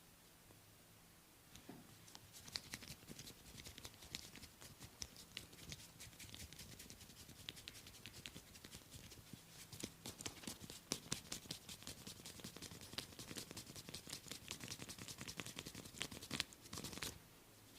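Head massage: a fast, irregular run of soft taps, pats and rubbing on the scalp and hair. It starts about a second and a half in and stops just before the end.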